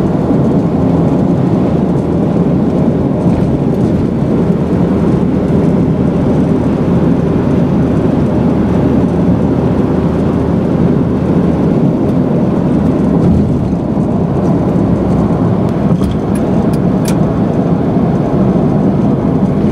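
Steady road and engine noise of a car cruising at highway speed, heard from inside the cabin.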